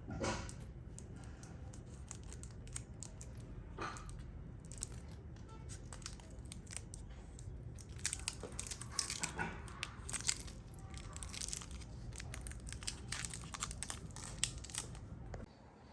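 Crinkling and rustling of handled packaging, with many scattered small clicks. It is busiest in the second half and stops shortly before the end.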